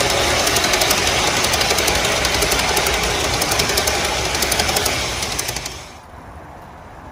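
G-scale model passenger cars rolling past close by: a steady rumble of metal wheels on the track with rapid, even clicking. It drops off sharply to a quiet background near the end.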